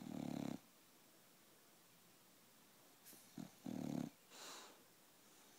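English bulldog snoring while only half asleep: two loud snores about three and a half seconds apart. The second has a short snort just before it and a breathy exhale after it.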